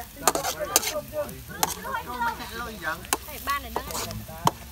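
Metal spatula stirring and scraping noodles and vegetables in a steel wok over a wood fire, with several sharp clinks of metal on the pan as the food sizzles.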